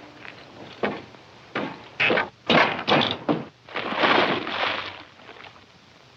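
A run of knocks and thumps on a wooden cabin door, then a longer, noisier crash about four seconds in as a thrown object hits the door and scatters debris.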